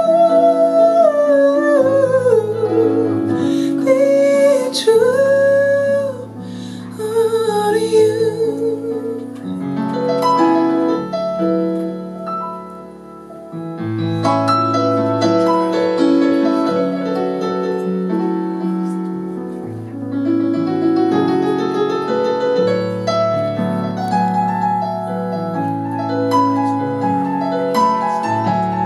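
A woman's voice sings a few held, sliding notes over a keyboard playing a slow jazz ballad in a piano sound. About a third of the way in, the voice drops out and the keyboard carries on alone with chords and melody.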